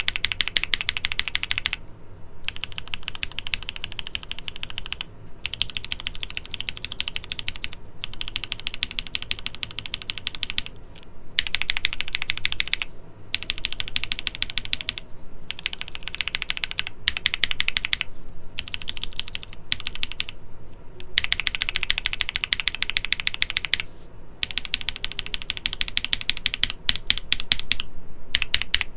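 Fast typing on a mechanical keyboard in a switch sound test: stock and lubed-and-filmed Raed switches with full nylon housings, set against lubed-and-filmed alpaca V2 and Cherry MX Hyperglide Black switches. Runs of rapid key clacks are broken by short pauses every few seconds.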